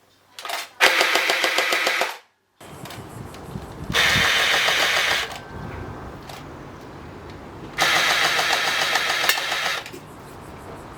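Electric gel ball toy blaster's motor and gearbox whirring in three bursts: two short ones and a longer one of about two seconds near the end, each with a steady even pitch, over a lower continuous hum.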